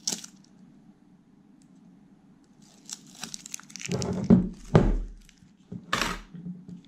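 Double-sided panel tape being handled on a plastic-cased UPS battery, with tearing and crinkling of the tape and its backing. A few seconds in, the battery cases knock and are set down on a wooden desk, giving two heavy thuds and another just before the end.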